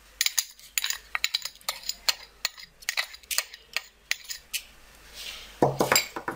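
A spoon clinking and tapping against a small dish, a rapid run of sharp clicks as vanilla is shaken out into a mixing bowl, followed by a couple of louder knocks near the end.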